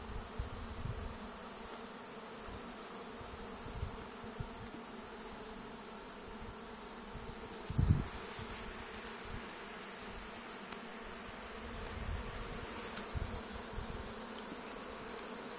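Honeybee swarm buzzing steadily around an open hive during a swarm capture, with one dull thump about eight seconds in.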